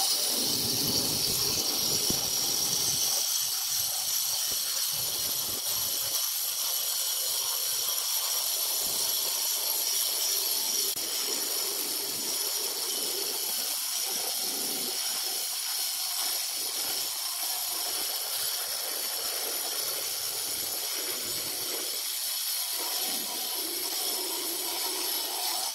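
Handheld electric stone cutter with a diamond blade wet-cutting through a granite slab, water fed onto the blade by a hose. The blade runs under load in the stone with a steady, high-pitched whine and hiss that does not let up.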